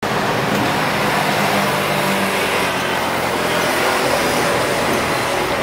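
Street traffic: a car running past with a low engine hum that fades after about two seconds, over steady road noise.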